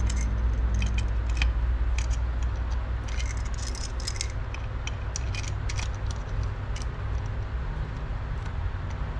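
Light metallic clinks and taps of connecting-rod bearing shells and rod caps being handled and fitted on an LS engine, with a flurry of quick clinks about three to four and a half seconds in.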